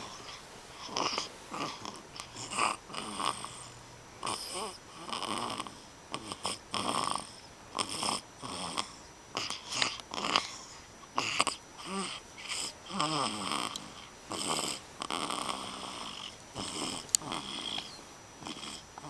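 Loud snoring: short, noisy breaths coming unevenly, about one or two a second, some with a brief wavering tone.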